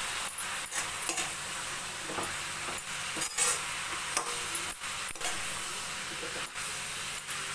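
Chopped vegetables and sambar powder sizzling in hot oil in a metal kadai, stirred with a steel ladle that scrapes and knocks against the pan at irregular moments. The vegetables are being sautéed with the spice powder before water is added.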